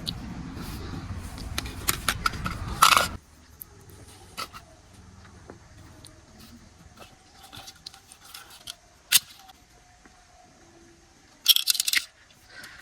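Clicks, taps and rattles of hard plastic being handled, with a louder clattering burst near the end. A low rumbling noise runs through the first three seconds and cuts off suddenly.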